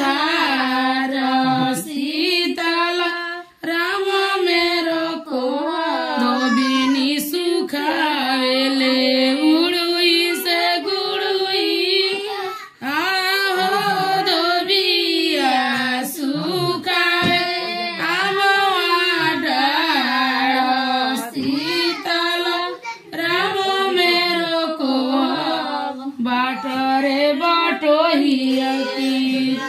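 High voices singing a traditional wedding folk song, unaccompanied, line after line with short breaks about three and a half and thirteen seconds in.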